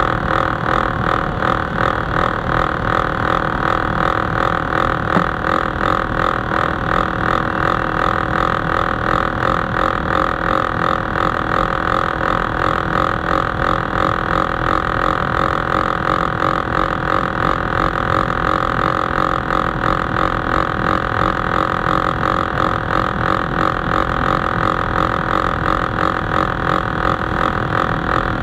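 Subway train running at speed through a tunnel: a loud, steady rumble of wheels on rails with a high-pitched running hum on top, pulsing rapidly and evenly.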